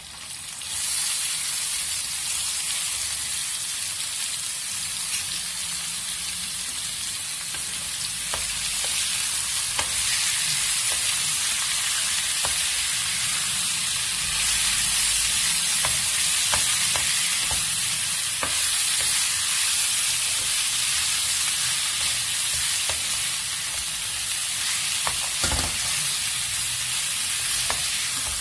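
Boiled amaranth leaves hitting hot oil and tempering in a kadai; the sizzle jumps up sharply about a second in and keeps up as a steady frying hiss. The greens are stirred with a spatula that clicks against the pan now and then.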